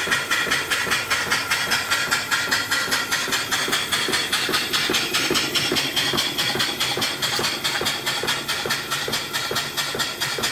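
Antique horizontal steam mill engine running steadily under steam: an even, rapid beat of exhaust puffs over a constant hiss of escaping steam.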